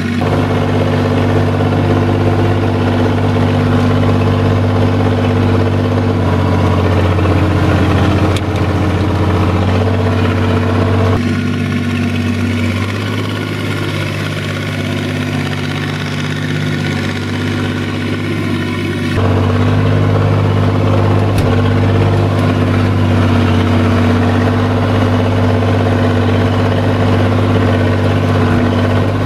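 SAME Laser 110 tractor's air-cooled diesel engine running steadily as the tractor drives. The engine sound changes abruptly twice, and near the end it is heard from inside the cab.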